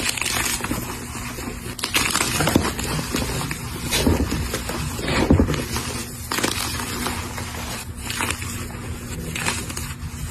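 A block of dyed gym chalk being crushed, crunching and crumbling in a run of irregular crunches, the loudest about four and five seconds in.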